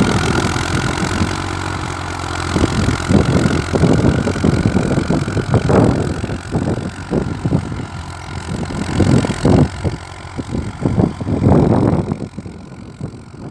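Massey Ferguson tractor engine running as it pulls a disc harrow through ploughed soil, with uneven buffeting rumbles over it; it grows fainter near the end as the tractor moves away.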